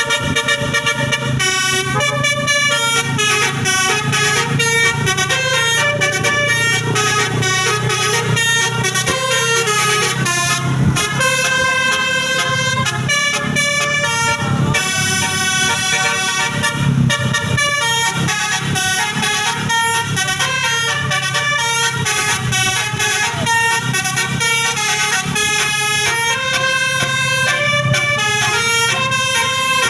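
Basuri multi-tone telolet bus horn playing a melody in stepped notes, continuous, over a steady low hum.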